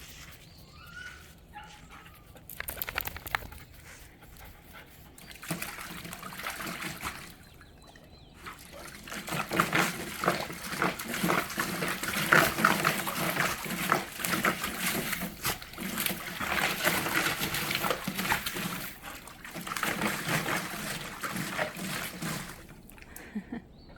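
Dogs playing in a shallow dog pool: water splashing and sloshing with dog sounds mixed in, growing louder and busier about nine seconds in and dying down near the end.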